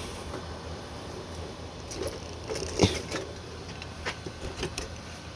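Handling noise from assembling a Halloween animatronic: cloth rustling over its frame poles, with scattered small clicks and knocks, one more distinct a little under 3 seconds in.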